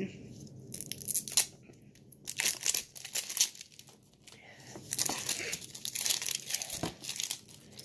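Toy packaging being pulled open by hand, crinkling and tearing in short crackly bursts, with a brief lull about halfway through.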